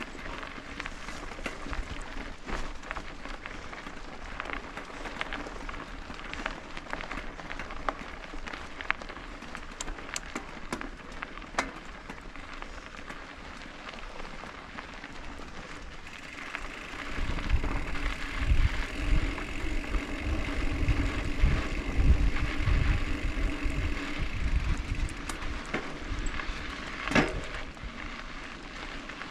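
Mountain bike rolling over a dirt trail, with tyres crunching and the chain and frame rattling in quick irregular clicks. About halfway through, wind starts buffeting the microphone in heavy gusts for several seconds.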